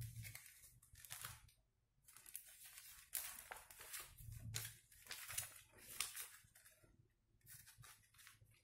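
Paper leaflets and a warranty card being handled, leafed through and unfolded, rustling in short, irregular bursts.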